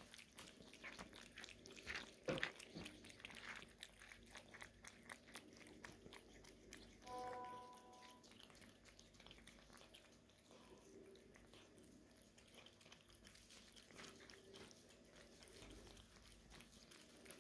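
Two cats eating wet cat food in gravy: faint, close-up chewing, lapping and lip-smacking as a run of small irregular clicks, with a couple of louder ones about two seconds in. A short steady tone sounds for about a second around seven seconds in.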